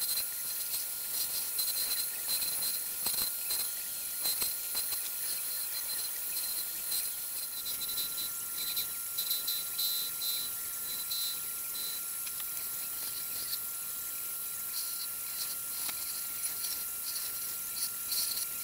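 Wood lathe spinning a wooden handle while a flat turning chisel held on the tool rest shaves it: a steady high hiss with fine crackle, over a thin steady tone.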